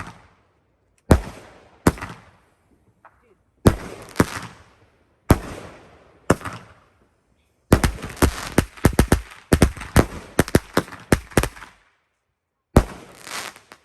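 A 200-gram consumer firework cake firing its shots. Single sharp bangs come a second or two apart, each trailing off. About eight seconds in, a rapid run of many bangs lasts about four seconds, and one more bang follows near the end.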